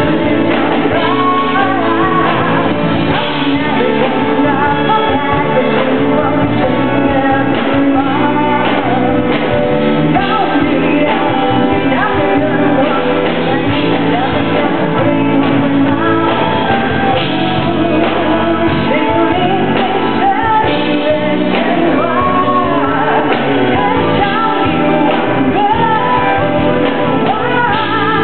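A singer performing live over loud music.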